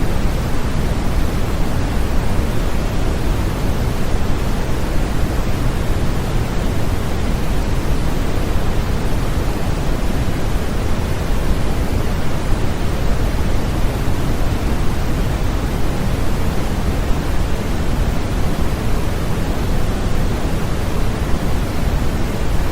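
Steady, unchanging noise with a deep, rushing character, heavier in the low end than in the high: a continuous pink-style white-noise track for infant sleep.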